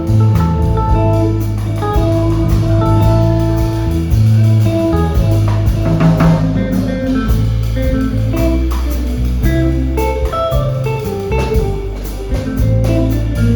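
Small jazz band playing: guitar notes over bass and drum kit, with cymbal strokes throughout.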